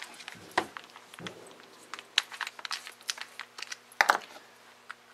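Scattered clicks and knocks of a corded drill and wooden slats being handled on a workbench, with the loudest knock about four seconds in; the drill's motor is not running.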